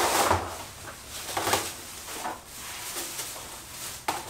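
Rustling of plastic wrapping and scraping on cardboard as a long LED shop light fixture is handled and slid out of its box. It comes in several short separate bursts, the loudest at the start.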